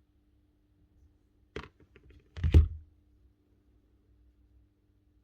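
Small tool and nail gun parts handled on a workbench during disassembly: a sharp click about a second and a half in, a few faint ticks, then a louder knock with a dull low thump.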